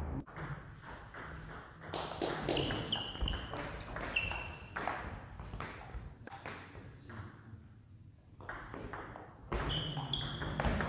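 Table tennis ball ticking off bats and bouncing on the table during a rally: a string of short, sharp, irregular pings, with a quieter pause a little past the middle before play picks up again.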